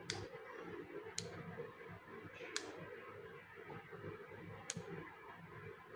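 Four sharp clicks spread a second or two apart from the in-line on/off switch on a table lamp's cord being pressed, over a faint steady room hum.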